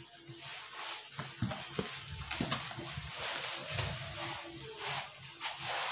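Cardboard boxes being opened and handled: rustling and scraping of cardboard and packing tape, with a few light knocks.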